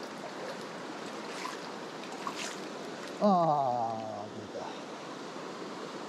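Mountain stream water rushing steadily. About three seconds in, a single pitched sound, the loudest thing here, falls in pitch and fades over about a second.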